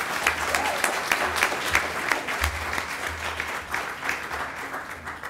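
Audience applauding: many hands clapping together, easing off a little toward the end.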